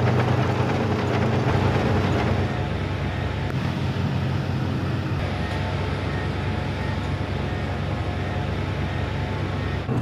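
Diesel engines of earthmoving machines, a crawler loader and a skid-steer loader, running steadily with a low engine drone.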